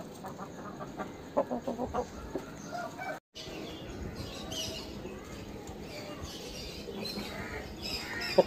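Aseel rooster clucking: a quick run of short clucks, about eight a second, about a second and a half in. After a brief dropout in the middle, only faint high chirping is heard.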